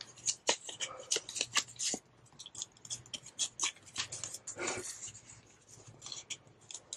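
Paper banknotes being handled and slid into a plastic binder pocket: a run of short, crisp rustles and ticks.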